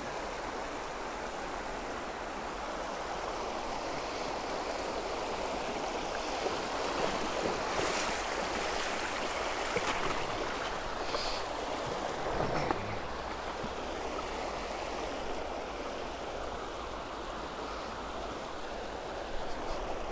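Shallow river water flowing steadily over a stony riffle, an even rushing. A few short, louder sounds come about halfway through.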